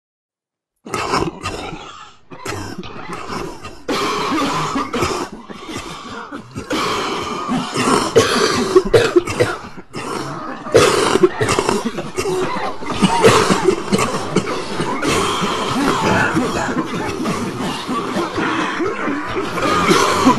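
Many people coughing, the coughs coming thick and overlapping one another, starting abruptly about a second in after a moment of silence.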